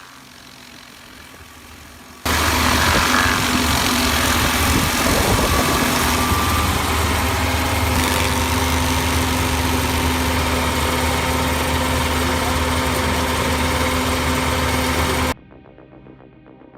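Heavy wood-processing machine running steadily under power: a loud, constant engine drone with a broad grinding hiss over it. It starts abruptly after a couple of seconds of low hum and cuts off suddenly near the end, where quiet music takes over.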